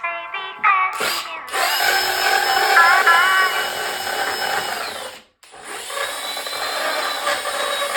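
A handheld electric power tool runs in two stretches. It spins up about a second in and runs steadily with a high whine, cuts off suddenly a little past halfway, then starts again straight away.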